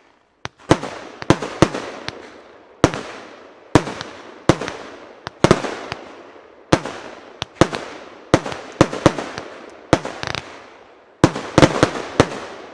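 Evolution Fireworks Tempest, a 30 mm, 80-shot compound fireworks cake, firing: an uneven run of sharp bangs from the launches and shell bursts, sometimes two or three within a second, each followed by a fading rumbling tail.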